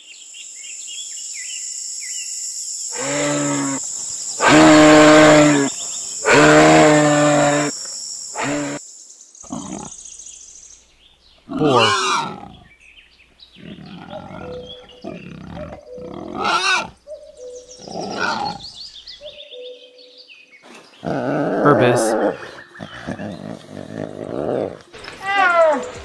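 Moose calling: three long, low moaning calls, each about a second and a half, over a steady high hiss. Then a wild boar vocalising: short calls that sweep up in pitch, and a cluster of grunts about three-quarters of the way through.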